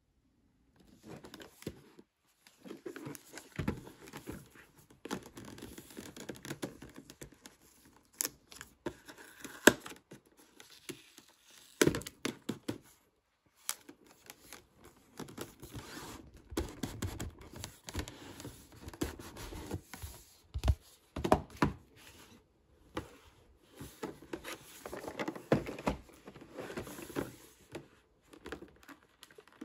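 A cardboard gift box being handled by hands: the card rustling and scraping as it is slid and opened, broken by frequent sharp taps and a few louder knocks.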